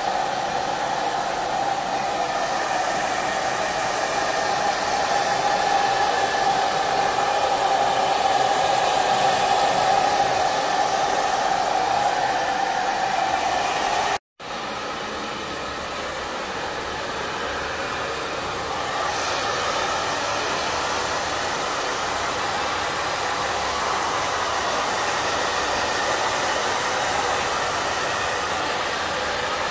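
Pet grooming blow dryer running, a steady loud rush of air. It cuts out for an instant about halfway through and comes back a little quieter and higher in tone.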